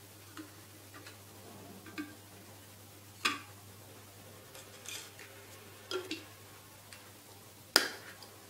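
Glass and plastic coffee-brewing parts (a V60 dripper, a glass server and its plastic lid) being handled and set down on a table: a string of light clicks and knocks about once a second. The sharpest knock comes just before the end, as the lid goes onto the server.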